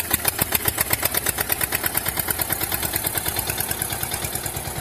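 Tractor engine running with a steady, rapid chugging of about nine beats a second.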